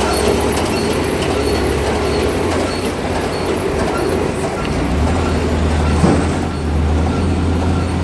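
Small round baler with a force-feed attachment running steadily, a continuous mechanical drone with a strong low hum that grows heavier about five seconds in. There is one brief louder knock about six seconds in.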